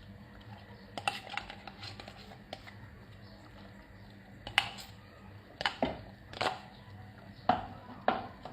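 A cooking utensil knocking and clinking against a pot of chicken curry, about eight irregular sharp strikes with short ringing, the loudest about halfway through.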